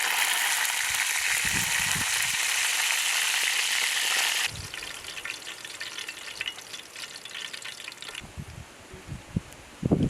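Food frying in a hot pan outdoors, a loud steady sizzle that drops off sharply about four and a half seconds in and fades further near eight seconds. A few low thuds come near the end.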